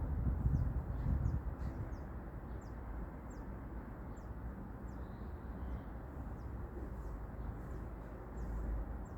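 A small bird calling with short, thin, high chirps that drop slightly in pitch, repeated about once or twice a second, over a low rumble of wind on the microphone that is strongest at the start.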